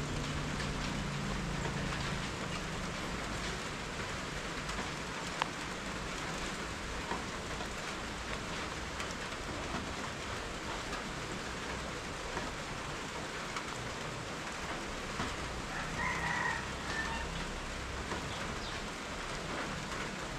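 Steady rain falling. A chicken calls briefly about sixteen seconds in.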